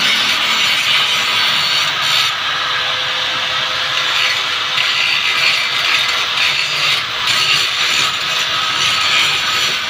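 Electric angle grinder running with its disc pressed against a rusty steel frame, grinding off rust to clean it before painting: a loud, steady rasping hiss over a faint motor whine, easing briefly about two seconds in and again near seven seconds.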